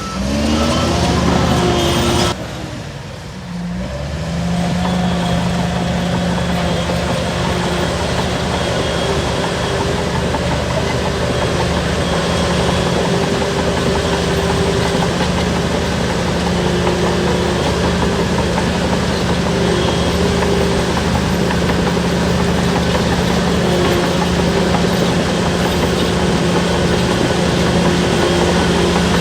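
Diesel engine of a Shantui DH17-C3 crawler bulldozer running steadily at working speed. Its pitch rises in the first second, and the level dips briefly about two seconds in before the steady running resumes.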